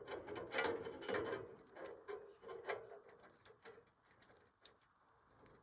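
Faint handling noises, a few light clicks and rustles, dying away to near silence about three seconds in.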